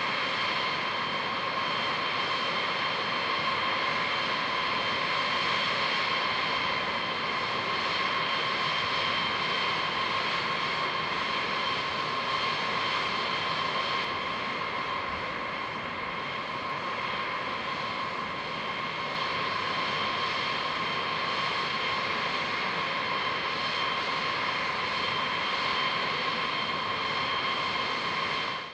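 Jet aircraft engine running steadily: an even rushing noise with a high, unchanging turbine whine.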